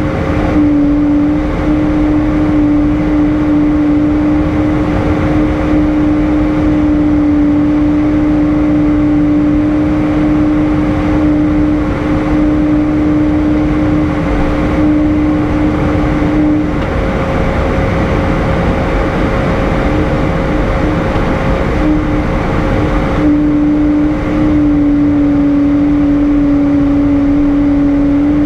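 Airbus A320 cabin noise in flight: a loud, steady rush of engine and airflow noise with a humming tone on top. The hum fades out for about six seconds past the middle, flickers, and comes back.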